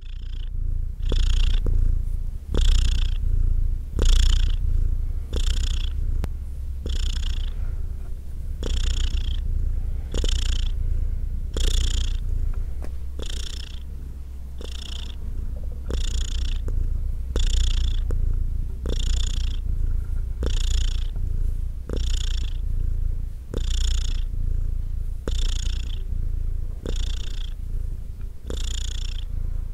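Domestic cat purring: a steady low rumble, with a brighter, breathier pulse about every second and a half as the purr follows each breath.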